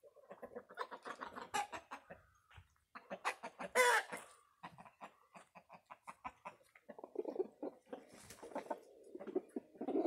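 A flock of chickens clucking in many short, quick calls, with one louder, harsher squawk about four seconds in.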